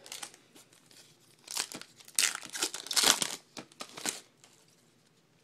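A baseball card pack's wrapper being torn open and crinkled in the hands, in a run of rustling tears that are loudest in the middle.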